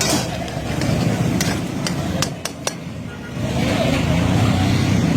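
Metal utensil clinking sharply about five times against cookware over a steady low rumble; the rumble dips for a moment, then comes back louder near the end.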